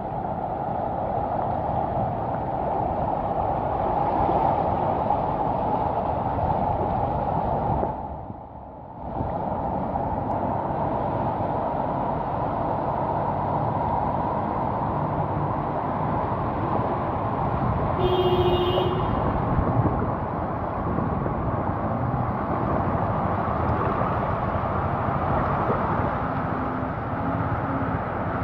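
Cars wading through deep floodwater: engines running under the steady slosh and rush of water, with wind noise on the microphone. The sound drops away for about a second near the start, and a brief beep-like tone sounds about two-thirds of the way through.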